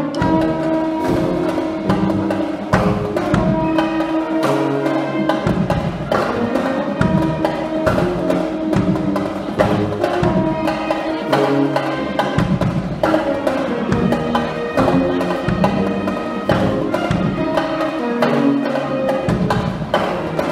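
Brass band of trumpets and sousaphones playing with a drum kit, the drums striking steadily under the held brass notes.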